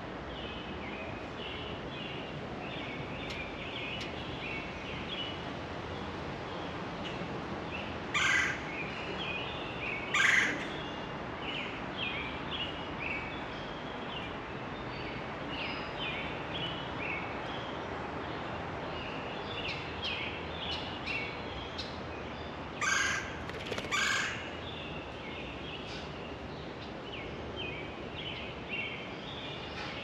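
Songbirds chirping steadily, broken by four loud harsh bird calls: two about a third of the way through, two seconds apart, and two more close together about three quarters of the way through.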